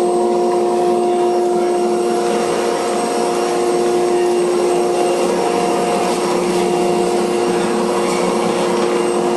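Holytek D405M Plus sliding panel saw's motor and circular blade running freely without cutting. It gives a steady, even hum with several held tones over a hiss.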